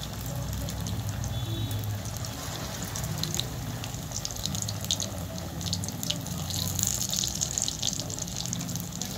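Bread rolls deep-frying in hot oil in an iron kadhai: steady sizzling with many quick crackles and pops.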